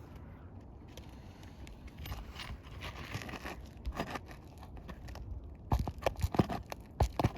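Old asphalt shingle being pried loose with a hand tool: scraping and tearing, then a quick run of sharp knocks and clicks near the end. The tearing is a sign of the shingle's age, an old, brittle shingle that rips as it is lifted.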